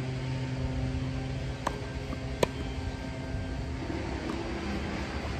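Tennis ball hits in a rally: two sharp pops about one and a half and two and a half seconds in, the second the loudest, and a fainter one about four seconds in. A steady engine-like hum whose pitch shifts runs underneath.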